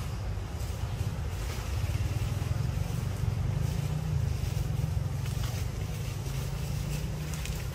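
A low, steady rumble with a faint hiss above it, a little louder in the middle.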